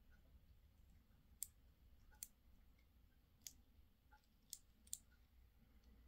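Five short, sharp clicks from the brass core of a Master Lock Pro Series padlock as its plug is pushed out of the cylinder with a follower rod, metal parts knocking together.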